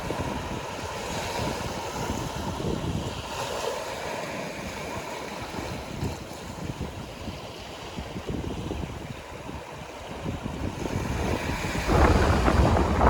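Sea waves washing on the shore, with wind buffeting the microphone in low rumbles. The surf swells much louder about a second before the end.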